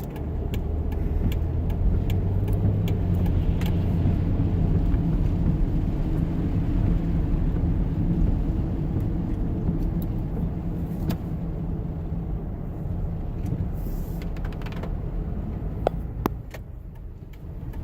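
Furnace running, a steady low rumble with scattered light clicks and ticks.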